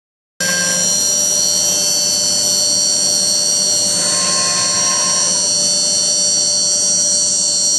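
Homemade CNC router running: a high-speed spindle's steady high whine mixed with stepper-motor tones that shift as the axes move, starting abruptly.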